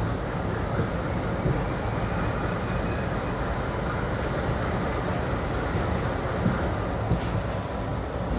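A passenger train hauled by a WDM3D diesel locomotive running at speed, heard from an open coach doorway: a steady, deep rumble of engine and wheels on the track, with a few faint clicks about seven seconds in.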